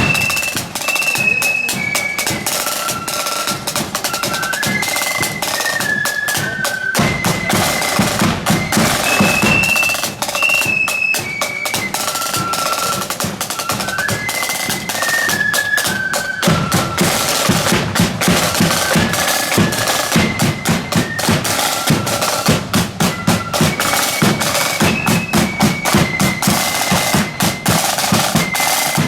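Marching flute band playing a tune: high flutes carry a stepping melody over snare drums and bass drum. Around halfway the drumming comes forward more strongly, with a regular pulsing beat under the flutes.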